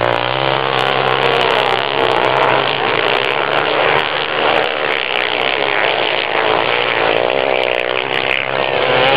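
Dirt bike engines revving hard as several bikes race past. Their pitches waver, rising and falling as the riders accelerate and back off.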